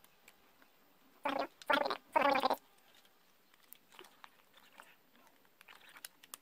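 Three short voice-like sounds in quick succession a little over a second in. Otherwise faint small clicks from plastic phone parts being handled and pressed into place.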